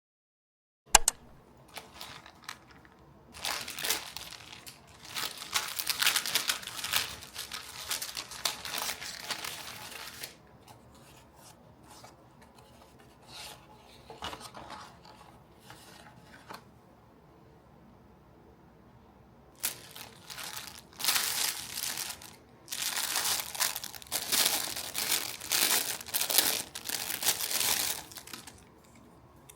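A sharp click about a second in, then two long spells of crinkling and tearing of wrapping material, each several seconds long.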